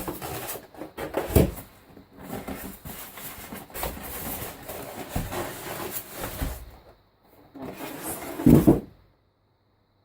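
Handling noise as a sewing machine is set in place: irregular knocks and rustling, with a heavy thump about a second and a half in and another near the end, after which the sound cuts off.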